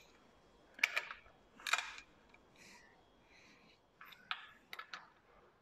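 Scattered sharp metallic clicks and clinks from tools on the Saab B204 engine as its crankshaft is turned by hand to check that the pistons and crank move smoothly: two close together about a second in, another near two seconds, then a cluster of four about four to five seconds in.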